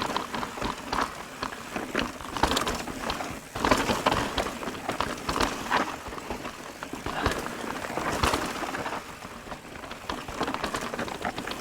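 Mountain bike rolling over a rough trail: tyre crunch with irregular knocks and rattles from the bike.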